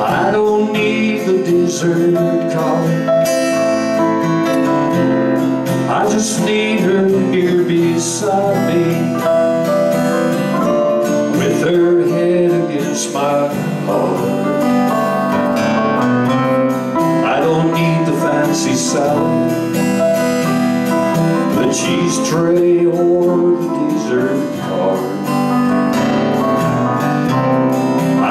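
Live band playing a song: strummed acoustic guitar with electric guitar and keyboard, and a man singing.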